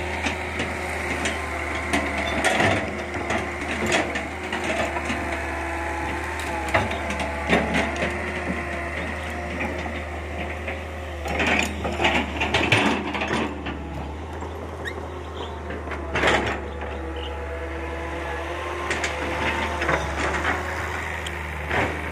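Tracked hydraulic excavator's diesel engine running steadily under load, with bursts of cracking and snapping from brush and branches being broken. The cracking is densest about halfway through and again a few seconds later.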